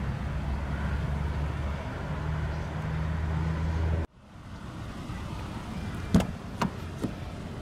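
A steady low rumble that cuts off abruptly about four seconds in, then a Toyota Avalon's exterior door handle pulled and the latch releasing: three sharp clicks, the first the loudest, about two, two and a half and three seconds later.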